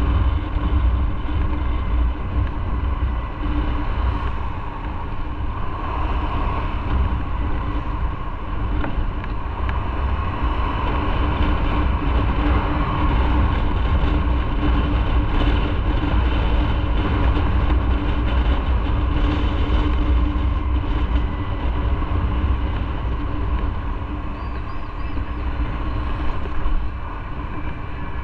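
Motorcycle under way at a steady speed: the engine runs evenly over a strong, steady low rumble of wind and road noise.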